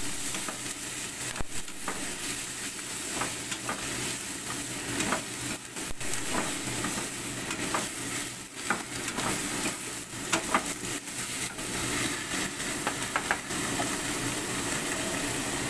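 Bok choy stir-frying in a hot oiled pan, sizzling steadily, while a metal slotted spatula stirs and scrapes it, knocking against the pan with irregular clicks.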